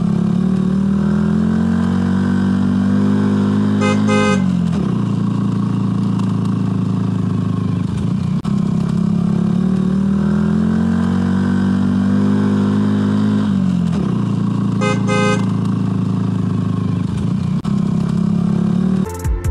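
Recorded car engine sound that revs slowly upward for several seconds and then drops back. It plays twice in the same pattern, with a brief honk-like burst near the top of each rise.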